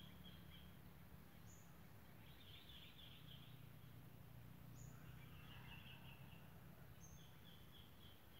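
Faint birdsong: short high whistled notes about every two seconds, alternating with bursts of rapid chirping, over a low steady background hum.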